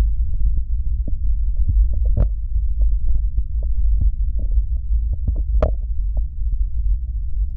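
Vaseline-coated fingers rubbing and pressing on a 3Dio binaural microphone's silicone ear, giving a muffled low rumble full of small sticky clicks. Two sharper wet pops stand out, about two seconds in and near six seconds.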